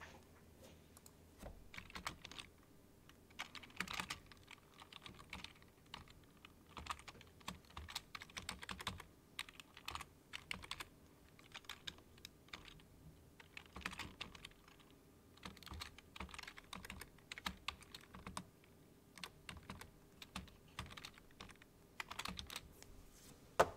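Typing on a computer keyboard: quick runs of keystroke clicks broken by short pauses.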